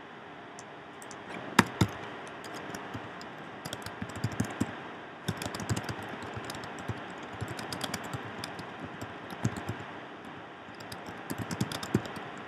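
Typing on a computer keyboard: irregular runs of key clicks, with two sharper clicks about a second and a half in.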